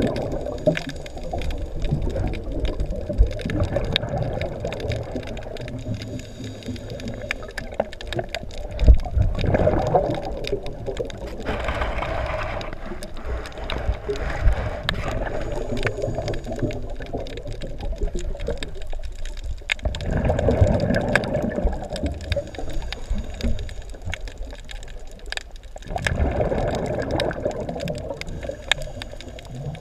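Scuba diver's exhaled bubbles rushing and gurgling out of the regulator in bursts every several seconds, heard underwater, over a steady scatter of faint sharp clicks.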